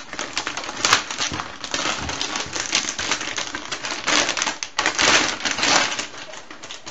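Antistatic plastic bag crinkling and rustling in a steady run of small crackles as a motherboard is slid out of it, busiest a little past the middle.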